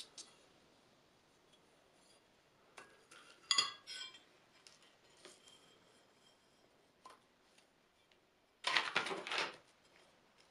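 Forged iron axe heads handled on an anvil: scattered light metal clinks and taps, the loudest a ringing clink about three and a half seconds in. Near the end comes a short burst of rubbing and clattering handling noise.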